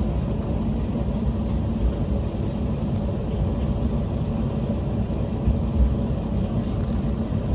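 Flower Nagai Line diesel railcar running, a steady low rumble of engine and wheels on the track.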